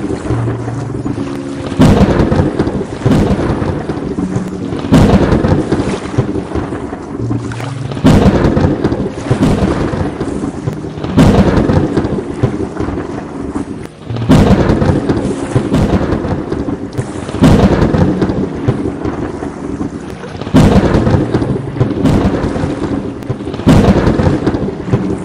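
Thunderstorm with steady rain and a sharp thunderclap about every three seconds, each trailing off into rumble.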